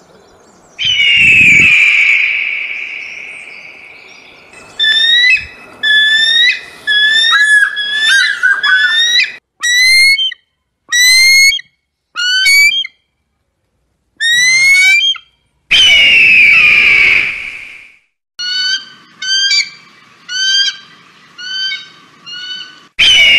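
Eagle calls: long, hoarse, high screeches alternating with runs of short, rising, piping whistled notes, about one to two notes a second.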